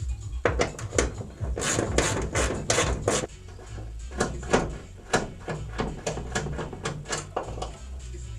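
Hand tools working on bolts, likely while unbolting the hood hinges: a quick run of sharp clicks starting about a second and a half in, then sparser single clicks and knocks.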